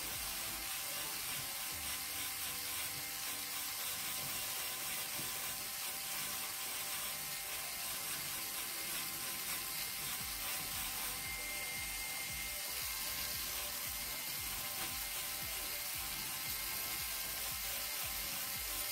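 Handheld electric nail drill running steadily, its bit grinding down acrylic nails.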